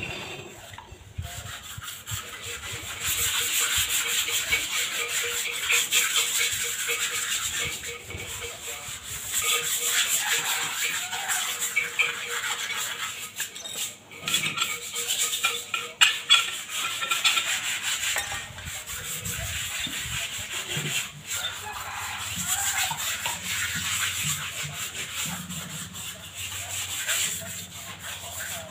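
Cement flower pots being scrubbed by hand, a rasping rub that comes in stretches of a few seconds with short pauses between them.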